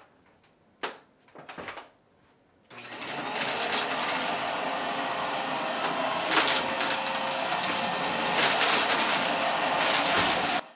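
An upright vacuum cleaner is handled with a few clicks, then switches on about three seconds in. It runs steadily with a high whine as it is pushed over carpet, and cuts off suddenly near the end.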